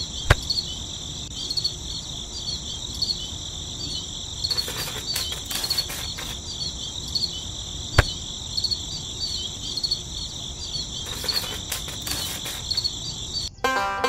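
Crickets chirping, a steady shrill trill of quickly repeated chirps that cuts off just before the end. Two sharp clicks stand out, about a third of a second in and again about eight seconds in, with a few clusters of softer clicks in between.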